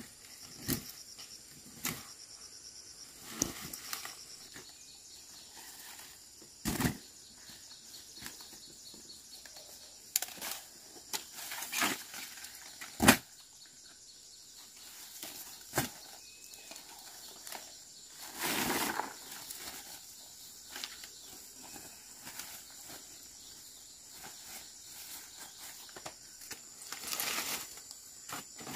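Leaves and grass rustling, with scattered snaps and knocks as green bananas are handled and packed into a woven bamboo basket; the sharpest knock comes about halfway through. A steady high insect drone runs underneath.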